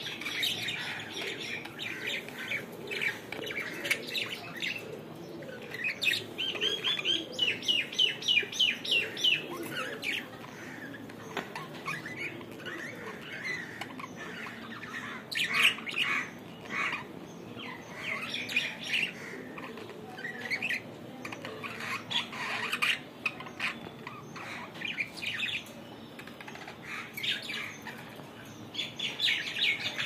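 Caged budgerigars chattering with quick chirps and squawks in irregular bursts, including a fast run of chirps partway through.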